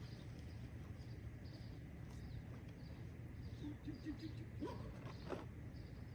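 Quiet outdoor ambience at the water: a steady low rumble with faint high bird chirps scattered through, a few short low pitched notes about two-thirds of the way in, and two sharp clicks near the end.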